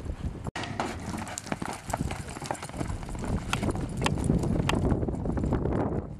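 Hoofbeats of a quarter horse gelding, a quick irregular run of hoof strikes on the ground with a rumbling noise underneath; the sound cuts out for an instant about half a second in.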